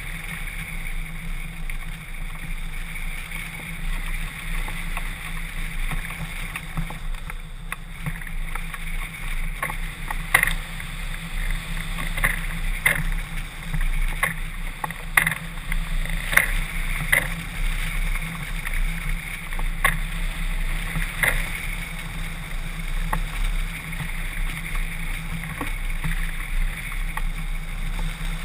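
Airflow rushing past a camera mounted on a hang glider's wing in flight: a steady rush with a low rumble, and from about ten seconds in, irregular sharp taps.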